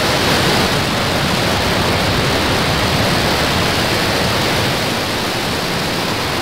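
Falcon 9's first stage lifting off on its nine Merlin engines: a loud, steady roar of rocket exhaust.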